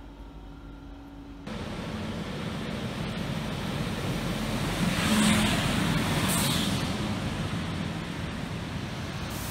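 SNCB class 27 electric locomotive and its passenger coaches running in along the platform: a steady rumble of wheels on rails that sets in sharply about a second and a half in and swells toward the middle, with two short high squeals around five and six and a half seconds in.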